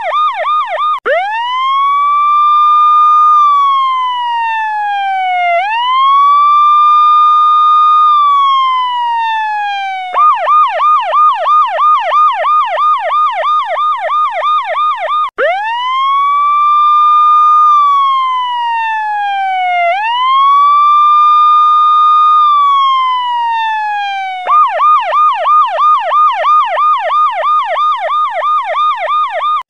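Electronic police-style siren sound effect cycling between a fast yelp, about three warbles a second, and a slow wail that rises, holds and falls twice, then goes back to the yelp.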